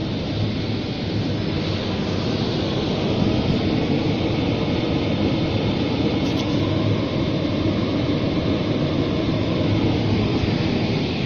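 Rotary drum sawdust dryer running: a steady low hum under a constant rushing machine noise from the drum and its drive motor and gear reducer.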